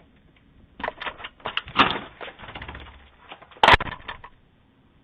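A rapid, irregular run of clicks and knocks, with one loud knock about three and a half seconds in.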